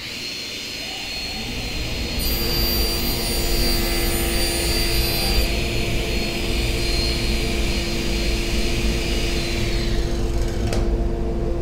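Felder table saw with a 250 mm, 60-tooth alternate-top-bevel crosscut blade starting up, then running with a steady whine while it crosscuts a sheet of plywood.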